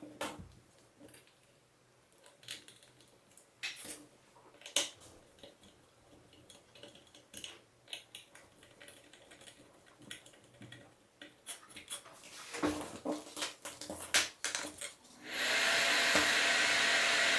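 Clicks and knocks of a screwdriver and hands working on a plastic bathroom exhaust fan housing, then about fifteen seconds in the repaired fan is switched on and its motor and blades start running with a steady airy hum.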